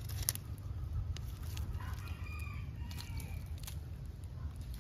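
A rooster crowing faintly, one drawn-out call starting about two seconds in, over a steady low rumble and a few small clicks of hands working through soil and dry leaf mulch.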